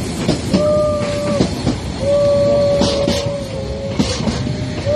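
Harz narrow gauge steam locomotive's whistle blowing in repeated blasts, a short one, then a longer one of about a second and a half, and another starting near the end, over the rumble and clatter of the train running. The whistle is sounded for a track crossing.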